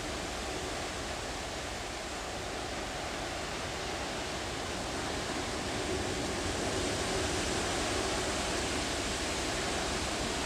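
Steady rushing hum of the cruise ship "The World" passing close along the canal, its machinery and ventilation noise mixed with water noise, growing a little louder about halfway through as the ship nears.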